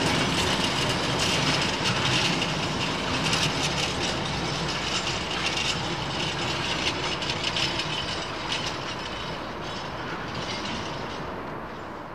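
Freight train hauled by Class 90 electric locomotive 90019 passing, its wheels clattering on the rails, the sound slowly fading as it draws away.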